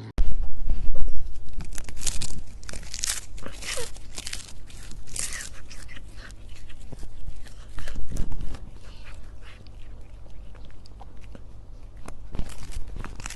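Irregular crunching and crackling, a run of sharp crackles that comes and goes, over a steady low hum.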